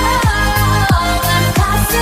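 Pop music with an electronic dance beat: kick drums about three times a second over a sustained bass and a melody line, with no singing at this point.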